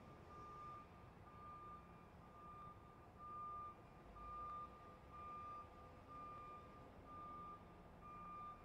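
Faint truck reversing alarm beeping: one steady tone repeated about once a second, nine beeps in all.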